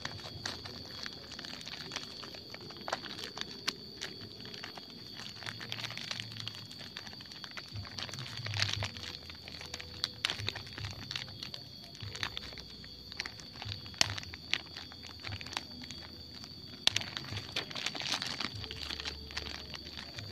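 Irregular clicks, knocks and crinkles of a plastic container being handled and taken off a cut bamboo stem that has been collecting bamboo water. A steady high-pitched tone sits behind the handling.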